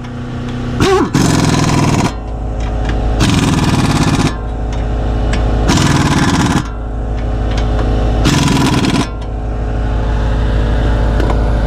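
Power impact wrench run down the 16 mm suspension bolts in four separate bursts of about a second each, with a steady low hum between the bursts.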